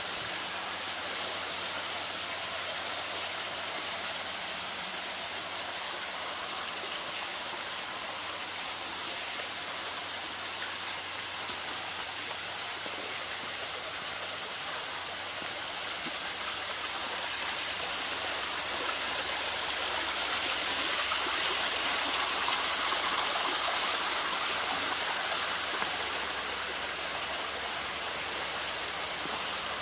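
Flowing water rushing steadily, swelling somewhat louder for several seconds past the middle.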